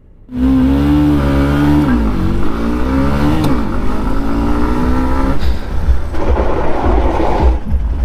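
Motorcycle engine revving under acceleration, its pitch rising, dropping back and climbing again. About five seconds in it cuts to a rougher, grittier engine sound.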